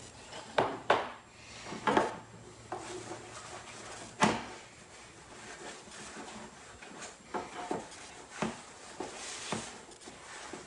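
Light knocks and clicks of objects being handled and set down on a workbench while an antenna base is cleaned with denatured alcohol and paper towel. The loudest knock comes about four seconds in, and a short rustling hiss comes near the end.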